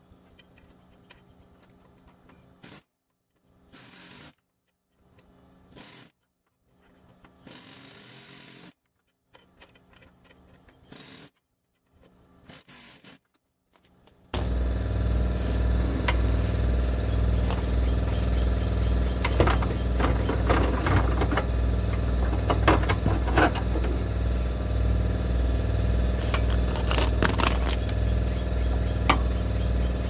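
Pneumatic air hammer running in a steady, loud, fast rattle, starting about halfway through, as it is used to drive a corroded aluminium bell crank off its seized steel steering shaft. Before that there are only short, faint snatches of tool handling, broken by silent gaps.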